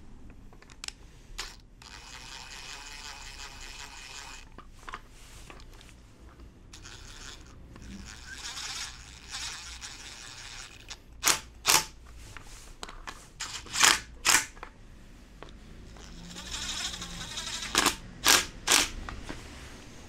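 Cordless drill-driver running in three longer runs, then several short sharp bursts on the trigger, driving screws to fasten the metal heat-shield cover onto a scooter muffler.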